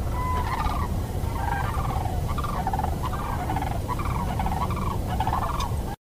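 Duck calling in a steady series of short, arched notes, about two a second, over a low rumble.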